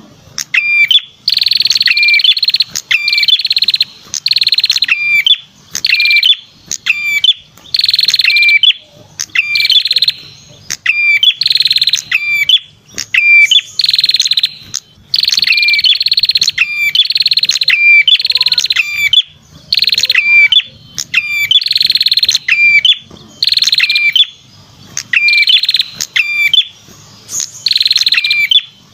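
Red-headed prenjak (perenjak kepala merah) song played as a bird-trapping lure call: a loud, buzzy trill with sharp chirps, repeated about once a second with short gaps between phrases.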